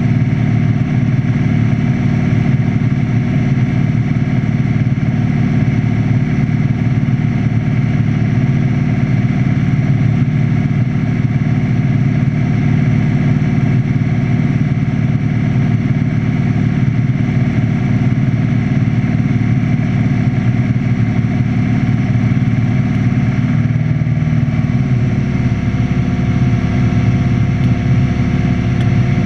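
Light aircraft's piston engine and propeller droning steadily, heard from inside the cockpit; the engine note shifts slightly about 24 seconds in.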